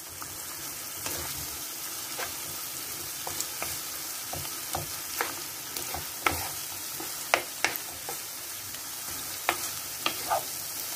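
Onion-and-tomato masala sizzling in oil in a non-stick frying pan while being stirred with a wooden spatula. The spatula scrapes and knocks against the pan at irregular moments, about a dozen times.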